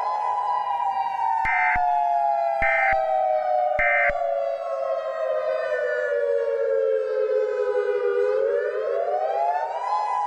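Civil defense warning siren sounding a missile-threat alert. Its pitch falls slowly over about eight seconds and rises again near the end. Three short, higher beeps about a second apart come between two and four seconds in.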